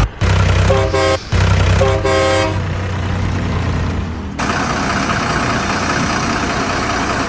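Truck engine rumbling while a horn honks twice, each honk about half a second long. About four seconds in, the rumble gives way to a steady rushing noise.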